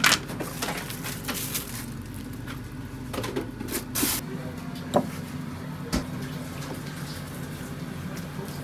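Kitchen handling noises: scattered knocks and clatters and a few short rustles, the loudest about four seconds in, over a steady low hum.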